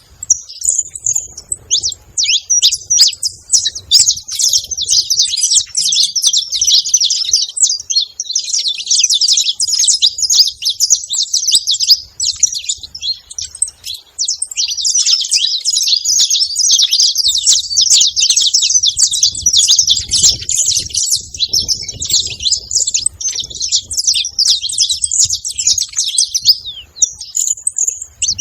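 A pair of saffron finches, male and female, chirping and singing together in a dense run of rapid, high chirps, broken by a few brief pauses.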